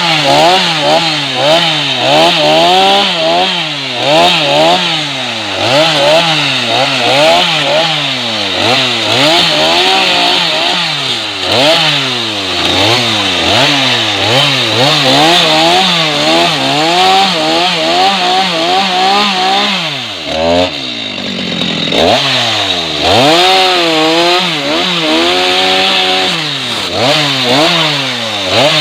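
Stihl MS 250 two-stroke chainsaw running hard, its engine speed rising and falling about once a second as it works, typical of a saw loading and unloading while cutting wood. About two-thirds through, the engine drops low for a moment, then picks back up.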